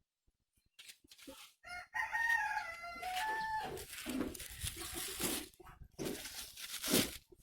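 A rooster crowing once, one long call of about two seconds, followed by a few seconds of irregular noise bursts.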